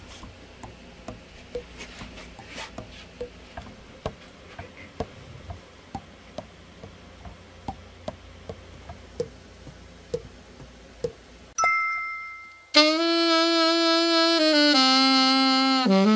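Pads and keys of a Yamaha YAS-280 alto saxophone clicking softly as gloved fingers press and release them in a leak test, about two light taps a second. Near the end comes a short two-tone chime, then the alto saxophone plays a loud held note and steps down through two lower notes.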